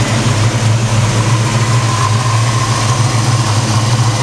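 A 1972 Chevelle SS's Chevrolet 454 big-block V8 idling steadily, heard close up in the open engine bay and still running on its factory exhaust manifolds rather than headers. A faint steady whine sits above the idle from about a second in.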